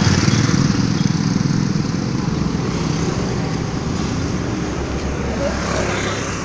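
Steady rumble of road traffic, a passing motor vehicle's engine slowly fading.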